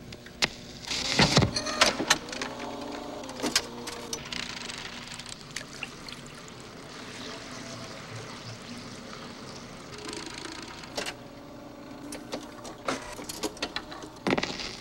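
Jukebox record changer working: mechanical clicks and clunks over a steady hiss, loudest about a second in and again near the end. Between them comes a stretch of softer handling sounds from hands working dough in a bowl.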